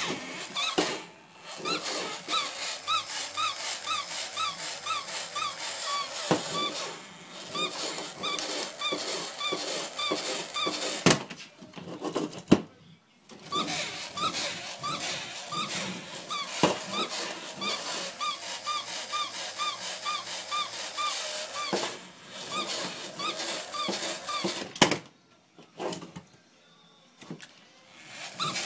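Battery-operated plush walking toy dog running, its mechanism clattering with a short squeak about three times a second. It stops twice for a moment, with a few sharp knocks around the pauses.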